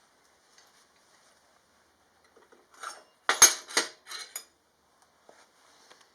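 A short clatter of metal pieces knocking and scraping together about three seconds in. The loudest knock comes first, followed by a few lighter clinks.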